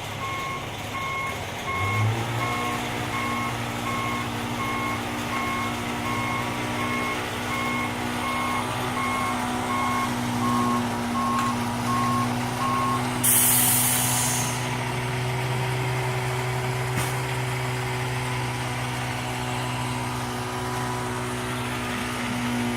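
Concrete mixer truck with its diesel engine running and its reversing alarm beeping steadily. The engine rises in pitch about two seconds in. The beeping stops about halfway through, and a short, loud hiss of air brakes follows.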